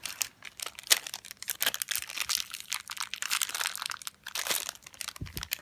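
Plastic packaging crinkling and crackling in quick irregular clicks as toy pieces are pulled out of it by hand.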